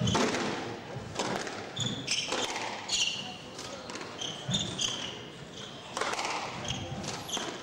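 Squash rally: the ball struck by rackets and hitting the court walls, sharp hits about once a second, with sneakers squeaking on the wooden court floor.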